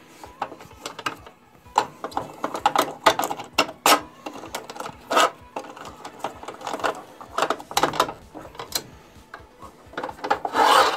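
Mitre gauge of a Bosch PTS 10 table saw being handled on the aluminium table: slid along its slot and adjusted, giving irregular clicks, knocks and scraping, with a louder rattle near the end.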